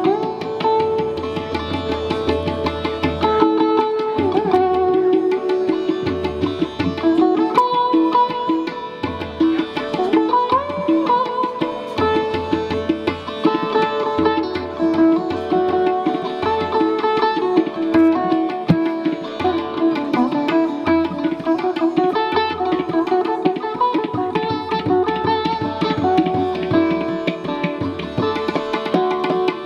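Sitar being played: plucked melody notes with sliding bends in pitch over a steady ringing drone, with low strokes keeping a rhythm underneath.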